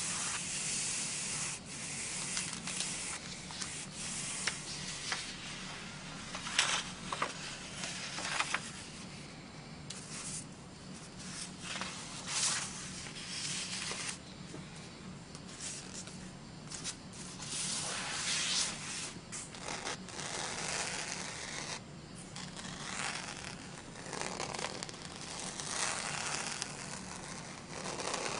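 Fingertips rubbing and scraping over sheets of textured scrapbook paper and glitter cardstock in a steady papery hiss. A few short, sharper rasps come as the sheets are shifted and swapped.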